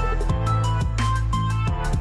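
Electronic background music with a steady drum beat and a heavy bass line.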